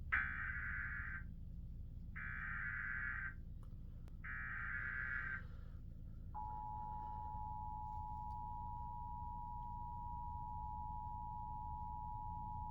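Emergency Alert System header: three short bursts of screechy digital data tones, then about a second later the steady two-tone attention signal that opens a severe thunderstorm warning broadcast.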